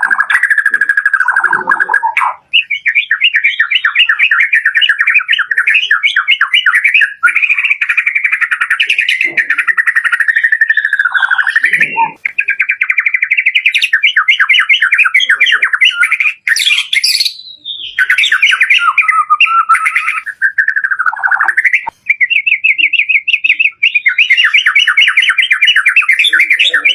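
White-rumped shama (murai batu) singing a long, varied song of fast repeated notes and trills, with only short breaks, in the rapid-fire 'dor' style that keepers prize.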